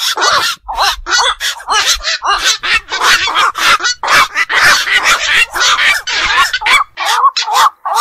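Black-crowned night heron calls: short, harsh calls coming several a second and overlapping one another.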